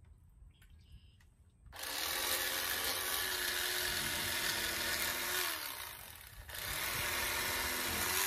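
Corded electric fillet knife running as it cuts the fillet off a catfish. It switches on about two seconds in and runs steadily, drops away briefly after about four seconds, then runs again.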